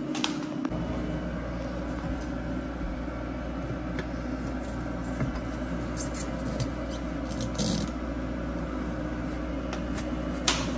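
A steady low machine hum, with a few short scrapes and rustles as a plastic in-duct air purifier housing is pressed and shifted against the duct by hand.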